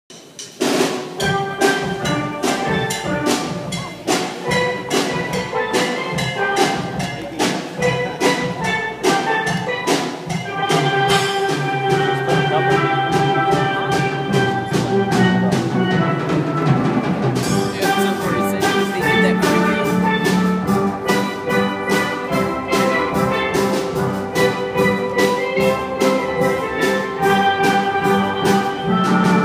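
Steel drum band playing a medley of heavy metal songs on steelpans: many quick struck, ringing notes over a steady rhythm.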